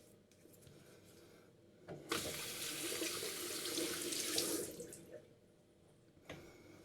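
Water tap running into a sink for about two and a half seconds, starting about two seconds in and shutting off; a small click follows near the end.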